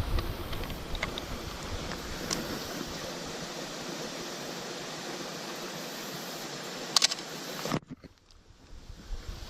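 Steady rush of falling water, an even hiss with no pitch. A single sharp click comes about seven seconds in, and the rushing cuts off suddenly just before eight seconds.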